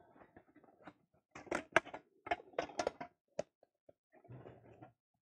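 Hands rummaging in a drawstring bag, items inside clacking: a run of sharp clicks and knocks, with a short rustle near the end.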